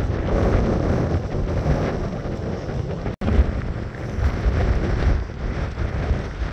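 Strong gusting wind buffeting the microphone, a loud, rumbling rush that rises and falls with the gusts. It cuts out for an instant about three seconds in.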